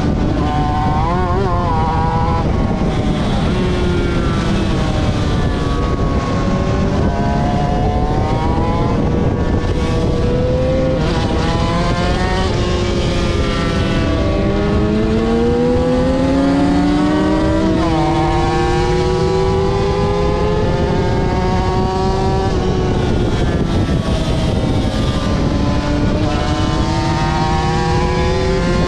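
Aprilia RS250's two-stroke V-twin engine at racing speed, its pitch climbing again and again as it accelerates through the gears, with short wavering drops as it shifts down.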